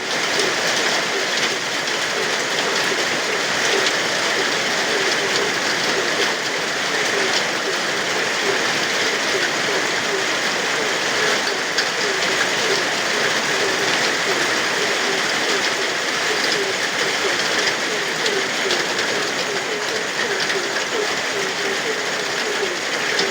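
Steady heavy rain, with frogs croaking in short calls repeated several times a second.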